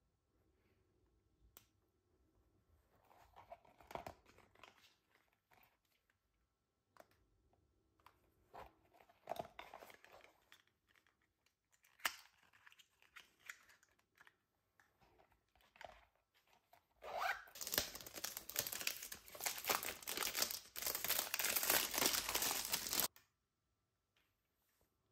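Unboxing handling noises: scattered quiet rustles and taps of packaging being handled, then about six seconds of loud crinkling and tearing of packaging that stops abruptly.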